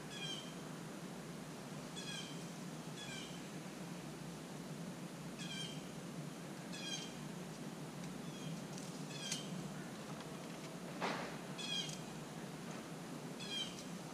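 Short, high animal calls repeated at uneven gaps of about a second, over a steady low hum, with one brief rising sweep near the end.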